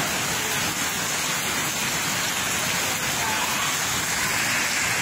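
Heavy rain falling steadily onto a flooded road, an even, unbroken hiss of rain on water.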